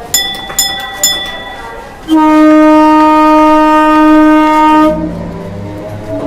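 Three short ringing clangs about half a second apart, then a steam locomotive's whistle blows one long steady note for about three seconds, the loudest sound here. After it cuts off, a quieter, lower train sound carries on.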